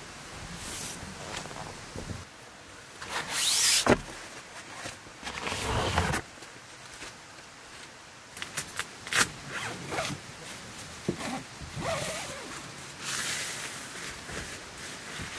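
A zipper pulled in several quick strokes, the loudest about three to four seconds in, with rustling and small clicks and knocks of gear being handled in between.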